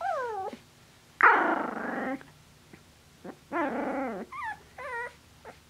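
Two 24-day-old Finnish Spitz puppies growling and yipping as they play-fight. The sounds are a short falling whine at the start, a loud rough growl about a second in, another growl past the middle, and then a few short high yips.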